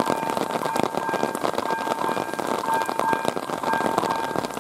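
Level crossing's electronic warning bell sounding a high tone over and over in short pulses, with steady rain falling and many drops striking close to the microphone.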